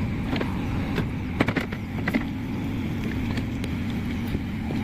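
JCB 3DX backhoe loader's diesel engine running steadily, with a few sharp knocks about one and a half to two seconds in.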